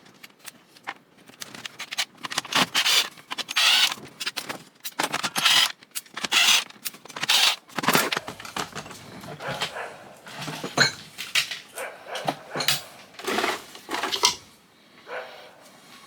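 Clattering, knocking and scraping of tools and plastic and metal parts as an old Cuisinart food processor is taken apart by hand: many separate sharp clicks and knocks with short rattling stretches between them, and a brief metallic ring near the middle.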